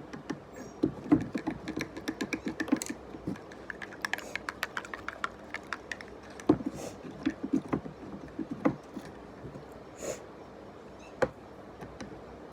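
Stirring: a utensil repeatedly clicking and tapping against the sides of a container as detergent is mixed into salt water for slime activator, in quick runs of clicks with short pauses and a few single taps near the end.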